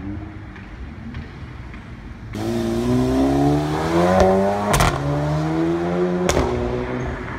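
Audi A3 45 TFSI's turbocharged four-cylinder accelerating hard through an aftermarket RES valve exhaust. From about two seconds in, the engine note climbs, then drops sharply at two upshifts, each marked by a loud crack from the exhaust, before fading near the end.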